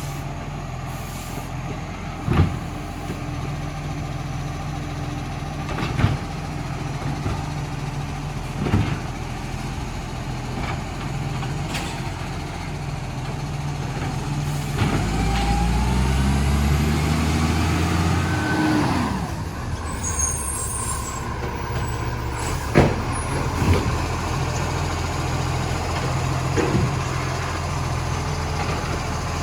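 Rubbish truck's diesel engine running, on a truck with an exhaust leak, with several sharp knocks spread through. About halfway the engine note rises, then a falling glide and a brief hiss follow.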